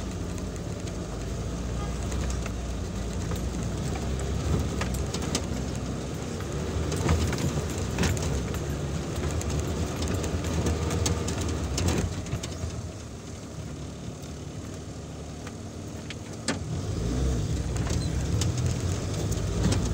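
Off-road 4x4's engine running as it crawls over a rough dirt track, heard from inside the cabin, with scattered knocks and rattles from the bumps. It eases off a little past the middle and picks up again near the end.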